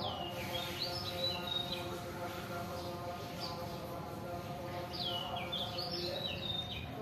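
A songbird singing two short phrases of quick chirps, near the start and again about five seconds in, each dropping in pitch and then levelling off. A steady hum runs underneath.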